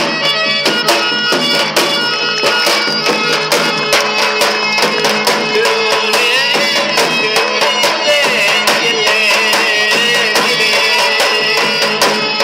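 Traditional folk music: fast, regular drumming of about four strikes a second over a steady reedy drone, with a wavering high melody line coming in about halfway through.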